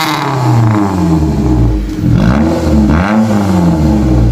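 Maruti Suzuki Zen's engine revved through its new muffler-delete exhaust: the revs fall away over the first second or so, then two quick blips, about a second apart, rise and drop back.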